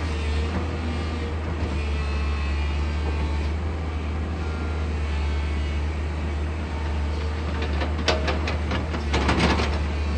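JCB 215 excavator's diesel engine running steadily with a deep, even drone. Near the end comes a short burst of rapid clattering knocks.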